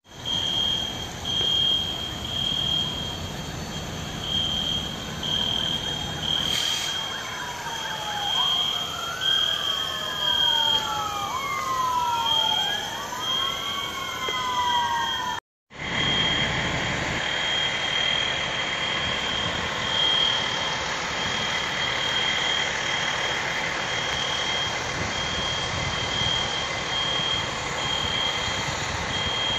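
A building fire alarm sounding a high beep over and over, with the wails of several emergency-vehicle sirens sliding up and down over one another from about seven to fifteen seconds in. Outdoor engine rumble underneath.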